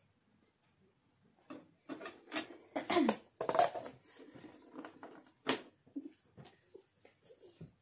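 Short, unworded bursts of a person's voice between about one and a half and four seconds in, followed by a single sharp click about five and a half seconds in and a few faint small handling sounds.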